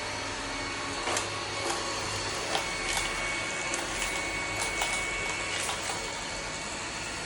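Xiaomi S10 robot vacuum running: a steady machine whir with a thin high whine, broken by scattered clicks and light knocks through the middle.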